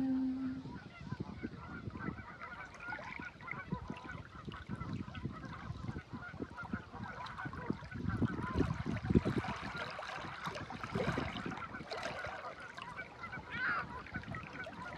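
A flock of Canada geese honking, many short calls overlapping, over a low, gusty rumble that swells about eight seconds in. A held sung note by a woman fades out in the first second.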